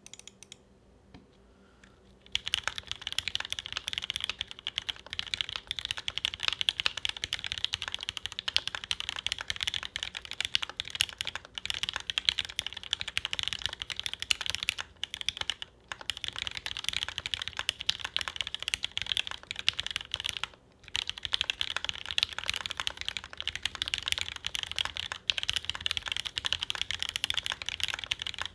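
Fast continuous typing on a custom mechanical keyboard (Rukia R1) with lubed SP Star Meteor White linear switches on a top-mounted UHMWPE plate and GMK keycaps, giving a clacky sound. Typing starts about two seconds in and runs with brief pauses about halfway and about two-thirds through.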